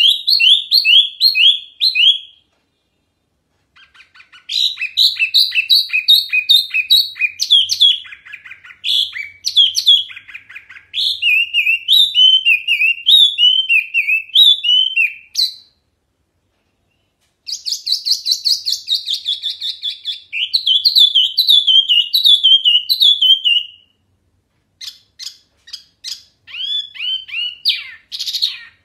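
Caged wambi mini songbird singing loud, clear phrases of rapid, repeated chirped notes. It pauses twice for a second or two, and ends with scattered single notes.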